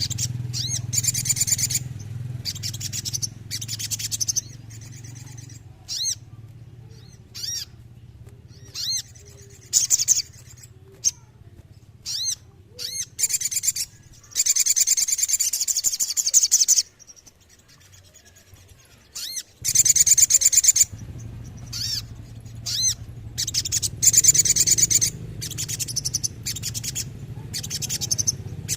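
Crimson sunbird (sogon) song: high, sharp single notes mixed with fast buzzy trills, several of them rolling on unbroken for one to two seconds. A steady low hum underlies most of it and drops out briefly past the middle.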